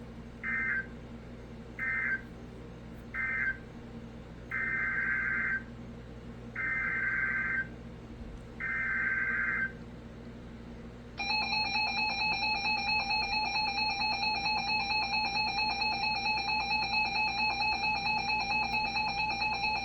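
Emergency Alert System signalling: three short screeching bursts of SAME digital data (the end-of-message code closing the previous alert), then three longer SAME header bursts starting a new alert, then about nine seconds of the steady two-tone EAS attention signal.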